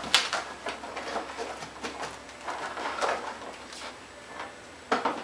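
Can-Am Outlander's hard plastic body panel being worked free from under the front cowling: irregular scraping, creaking and clicking of plastic on plastic, with a sharp click just after the start and another clatter near the end.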